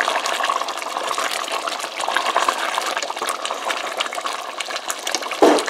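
Chicken in a thick gravy bubbling and sizzling in a pot on a medium flame, the chicken cooked through, while a spatula stirs it. There is a continuous crackle of small pops, with one louder brief sound near the end.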